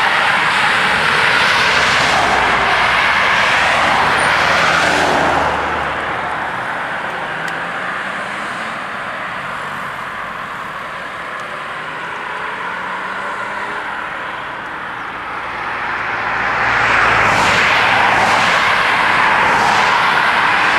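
Cars driving over a rural level crossing, tyre and engine noise. The first car passes in the first five seconds, then the sound dies down for about ten seconds, and another vehicle passes, loud again, for the last four or five seconds.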